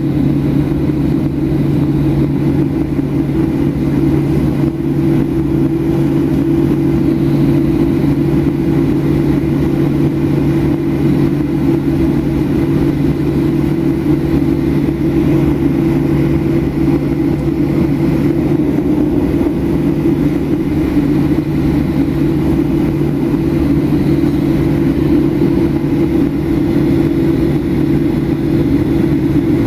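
Steady cabin drone of a Boeing 737-800 taxiing, its CFM56-7B turbofan engines running at low taxi power, heard from inside the cabin as a constant low hum.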